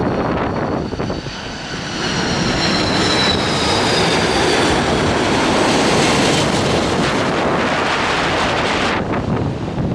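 Jet airliner passing low overhead on its landing approach: a loud rush of engine noise with a high whine that falls slowly in pitch as it goes by.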